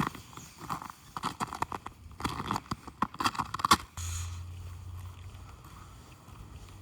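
Crunching footsteps in snow, a quick run of short crunches, stopping about four seconds in. A steady low hum then takes over.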